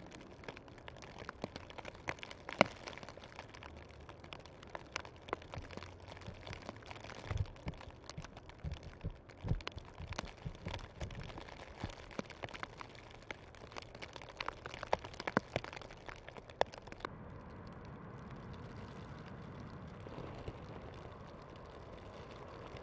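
Outdoor ambience in falling snow: scattered light ticks and clicks over a faint hiss, with a few dull low thumps about halfway through. About three-quarters of the way in it changes suddenly to a steady low rumble and hiss.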